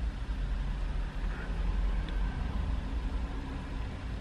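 Low, steady vehicle rumble heard from inside a van's cabin, with no other clear event.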